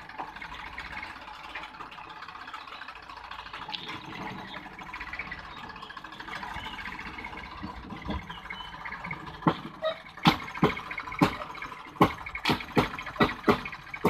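Rail-converted tractor's diesel engine running steadily. From about nine seconds in, a run of loud sharp clacks comes about three times a second as the tractor and wagon move along the track.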